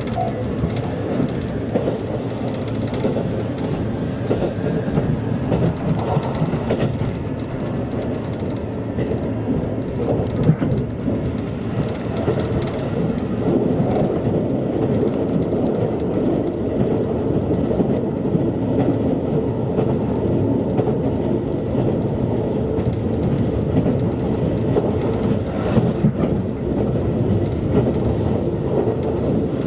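Steady running noise of a JR Kyushu passenger train at speed, heard from inside the carriage: a continuous low rumble of wheels on rails with scattered faint clicks, growing slightly louder in the second half.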